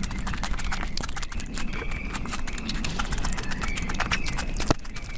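Close-miked eating sounds: a dense run of wet mouth clicks and smacks from chewing and licking curry off the fingers. Near the end comes the soft squish of rice and dal being mixed by hand.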